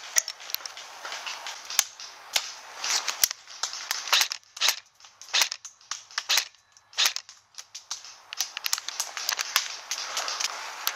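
Airsoft rifle shots: single sharp cracks at irregular intervals, a few to several seconds apart and bunched closer together later on, with rustling of vegetation and gravel underfoot near the start and end.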